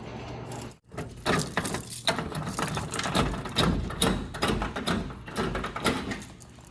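Irregular clicking, knocking and rattling from a vending machine being worked on by hand, its door and inner mechanism clattering.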